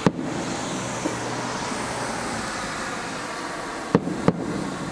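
Aerial firework shells bursting: one sharp bang at the start, then two more about four seconds in, a third of a second apart, over a steady background rush of noise.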